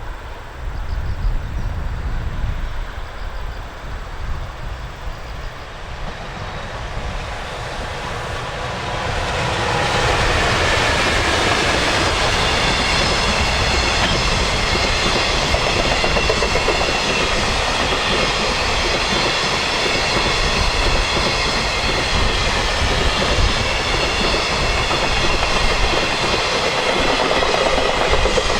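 A train passing close by on the Tokaido Main Line: it builds up about nine seconds in, then runs loud and steady, wheels on rails with a ringing whine on top.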